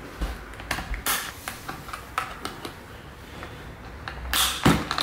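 Metal swivel clips of a carry strap clicking and rattling as they are hooked onto the lugs of a hard plastic instrument case, with scattered small knocks of handling. A louder scrape or rustle comes about four and a half seconds in.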